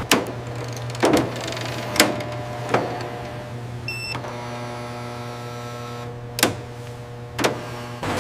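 Benchtop Rockwell hardness tester running with a steady electric hum and a whir, about half a dozen sharp mechanical clicks, and a short electronic beep about four seconds in as the hardness reading comes up.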